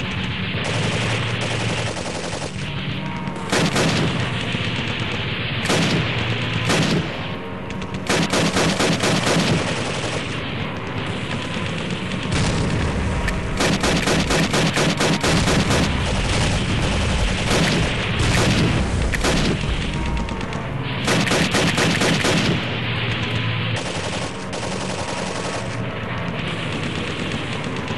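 Paintball markers firing in repeated bursts of rapid shots, several players shooting at once, the volleys coming in clusters a second or two long through the whole stretch and densest in the middle.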